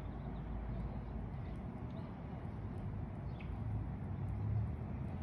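Steady low outdoor rumble, with two faint short bird chirps about two and three and a half seconds in.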